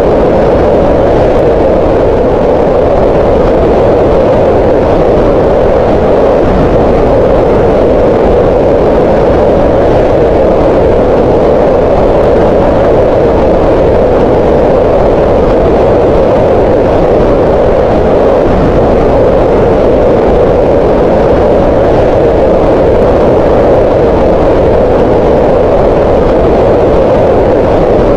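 Green noise: a steady, loud, unchanging rushing sound, weighted toward the middle of the range rather than hissy or rumbling.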